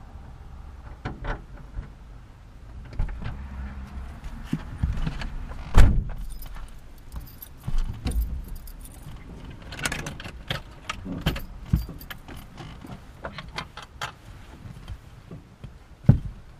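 Handling noises inside a parked car with the engine off: keys jangling and scattered clicks and knocks. The loudest is a thump about six seconds in, and another comes near the end.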